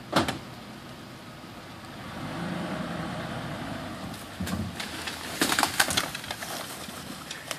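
A pickup truck pulls away, its engine running under load, and drags a rope-tied metal shopping cart out of a creek. The wire cart clatters and scrapes through brush and grass, loudest about five to six seconds in. A single sharp knock comes at the very start.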